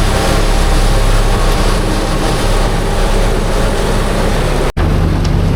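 Heavy farm machinery running steadily under load: a tractor engine and a corn forage chopper at work, with a broad rushing noise over the engine hum. It cuts off abruptly near the end and gives way to a steadier, lower engine hum.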